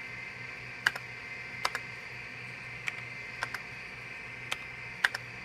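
Keys pressed on a computer keyboard, single and paired clicks coming irregularly about once a second, over the steady hum and whine of the running PC.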